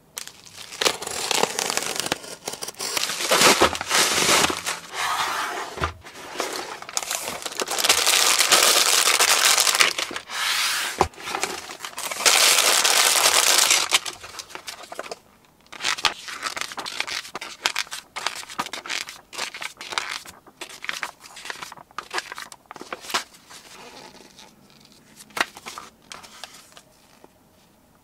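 A cardboard parcel of building-brick parts being opened and unpacked by hand: packing tearing, plastic parts bags crinkling and rustling, and scattered sharp clicks and taps. The tearing and rustling come in long loud stretches in the first half, then thin out to quieter, sparser handling noise.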